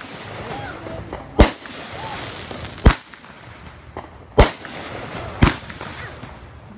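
Aerial fireworks going off overhead: four sharp bangs about a second and a half apart, with a fainter pop just before the third.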